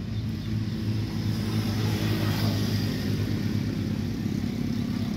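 Road traffic: a steady low engine hum with the noise of passing vehicles, swelling briefly about two seconds in as one goes by.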